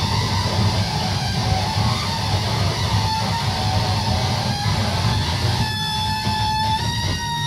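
Loud amplified noise music: a dense, distorted low rumble, with several steady high whining tones coming in near the end.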